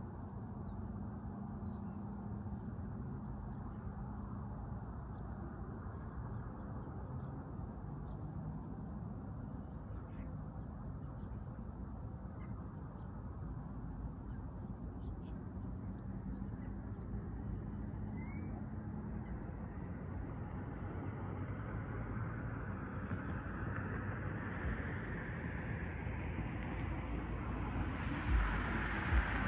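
Steady low rumble of road traffic with scattered bird chirps. Over the last ten seconds a vehicle's noise grows steadily louder as it approaches.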